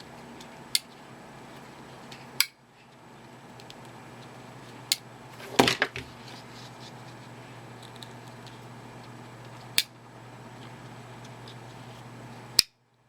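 Victorinox Sentinel pocket knife being worked: several sharp metallic clicks, spaced a few seconds apart, as the blade is opened and snaps into its lock, then is unlocked and closed. A faint steady hum runs underneath.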